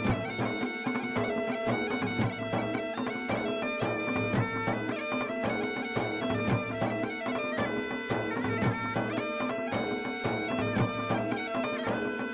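Background instrumental music: a wind-instrument melody of held notes, changing about once a second, over a steady drone.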